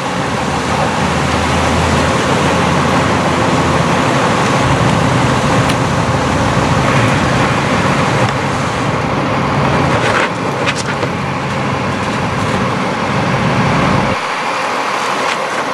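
Water rushing through a fire hydrant's Humat valve as it is opened to charge a 5-inch supply hose, a steady loud rush with a fire engine running underneath. The low rumble drops away about fourteen seconds in.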